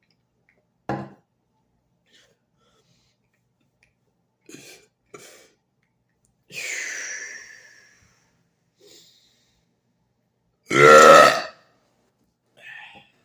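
A man burping deliberately: a short burp about a second in, and a longer, louder burp about eleven seconds in, the loudest sound here. Softer breathing and mouth sounds come in between.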